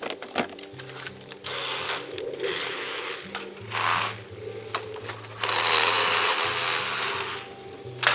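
Background music with held low bass notes changing pitch in steps, overlaid by two long bursts of noisy work sound and a sharp click near the end.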